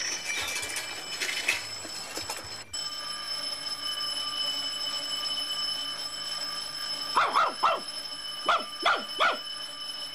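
A dog barking, two barks and then three more in quick succession a moment later.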